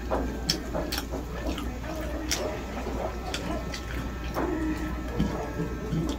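A person eating: wet chewing and mouth sounds with a dozen or so sharp clicks scattered through, and a short voiced murmur about four seconds in.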